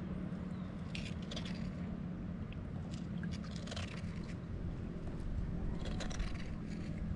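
Steady low rumble of strong wind and sea, with a few faint scrapes and crunches of sea urchins being handled and opened.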